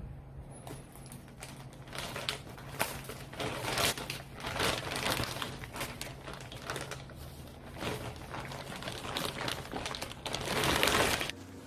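Packaging being unwrapped: irregular crinkling, rustling and small clicks of wrap and box material being handled, busiest and loudest near the end before stopping abruptly.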